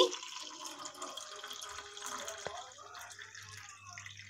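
Frothy blended lemon water poured in a steady stream from a steel mixer-grinder jar into a glass tumbler, filling it. The stream tails off near the end.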